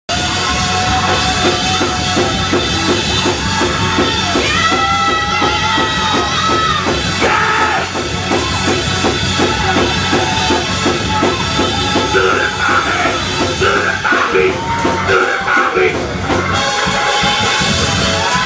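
Live gospel praise-break music: a drum kit keeps a steady beat under a group of voices singing and shouting.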